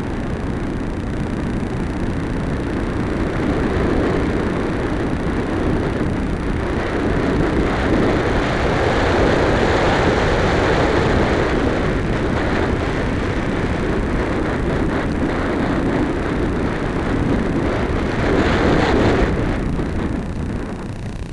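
Airflow rushing over the onboard camera of a 2-metre electric RC glider in flight, a steady noisy rush that eases near the end as the glider comes down close to the ground.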